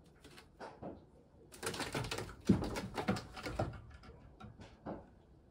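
A cat's claws scraping and gripping the sisal rope of a scratching pole as it climbs, in irregular scratchy bursts, with a sharp thump about two and a half seconds in.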